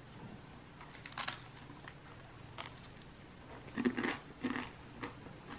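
Biting into and chewing a crispy air-fried frozen dumpling: separate crunches about a second in and again a little later, then a louder cluster of crunching and chewing near the end.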